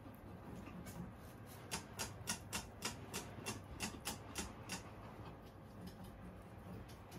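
Guinea pig chewing hay: a regular run of about a dozen crisp crunches, roughly four a second, starting about two seconds in and stopping about five seconds in.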